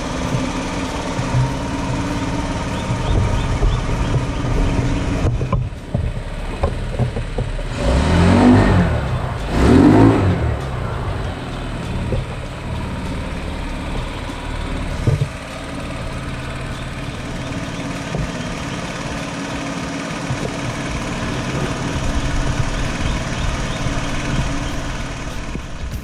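150cc GY6 scooter's single-cylinder four-stroke engine idling steadily, its flooding carburetor float fault cured. The throttle is blipped twice, about eight and ten seconds in, each rev rising and falling quickly back to idle.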